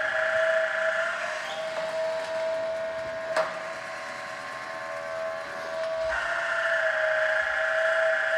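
The 12-volt electric motor of a Woodland Mills automatic bandsaw blade sharpener running with a steady whine, its tone shifting a little about a second in and again about six seconds in. One sharp click sounds about three and a half seconds in.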